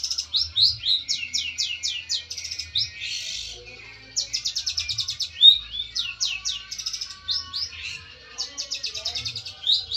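Long-tailed shrike (cendet) singing a challenging call to rivals: quick runs of sharp high notes that each sweep downward, about eight a second, in phrases broken by short pauses, with a harsh rasping note about three seconds in.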